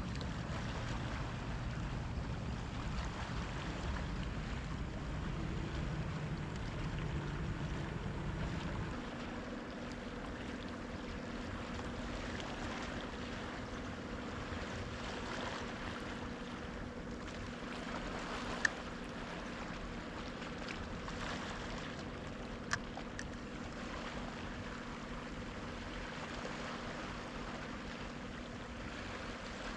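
Sea water washing against the shore, a steady wash of noise. From about nine seconds in a low steady hum runs under it, and two sharp clicks come later.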